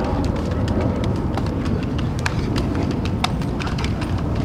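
Irregular sharp clacks and smacks of football players' gloved hands and pads striking in a hand-fighting contact drill, over a steady low rumble.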